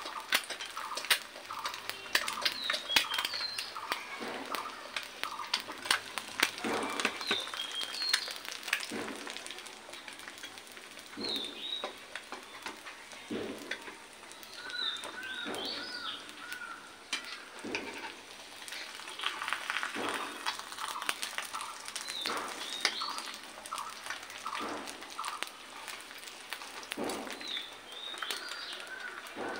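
Egg frying in ghee in a non-stick pan: steady crackling and spitting with frequent sharp pops. Birds chirp briefly in the background every few seconds.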